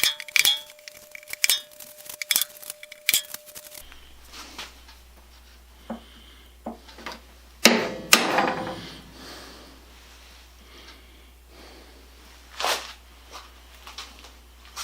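Scattered clinks and knocks of metal hardware and hand tools being handled on a wooden tool box, with a louder rattle about eight seconds in.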